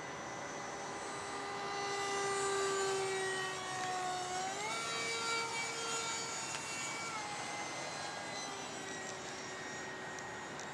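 A 70mm electric ducted fan on an RC F-16 jet whines as the plane flies by, loudest early on. Its pitch sags slowly, jumps up sharply about halfway through, drops back a couple of seconds later, and the whine fades.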